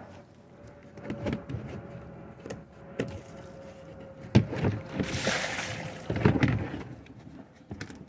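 Handling noises: several dull thunks, the loudest about four seconds in, and about a second of rustling just after, over a faint steady hum.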